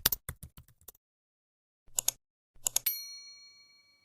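Typewriter keys clacking in quick runs, then a single bell ding, the carriage-return bell, that rings out and fades over about a second and a half.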